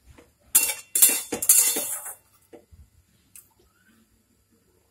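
Metal spatula scraping and clanking against a metal kadai as raw marinated chicken and potatoes are stirred, in two loud bursts over the first two seconds, then only a few faint ticks.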